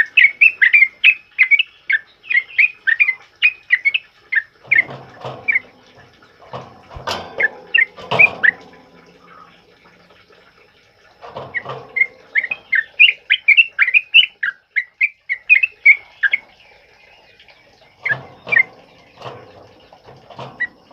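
Yellow-vented bulbuls singing loud, rapid chattering phrases of short, sharp notes in bouts, with rougher lower notes mixed in and short pauses of a second or two between bouts.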